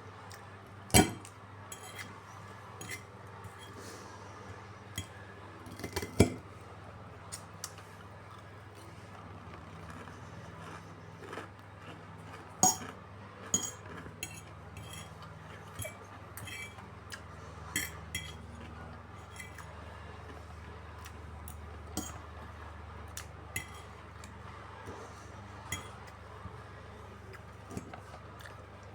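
Cutlery clinking and tapping against dishes in irregular clicks, with a few louder strikes, over a low steady hum.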